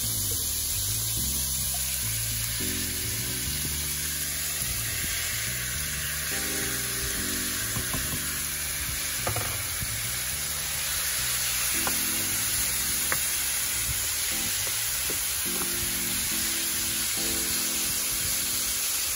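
Minced chicken sizzling steadily in hot vegetable oil in a nonstick frying pan, stirred with a wooden spatula that taps and scrapes the pan a few times in the middle.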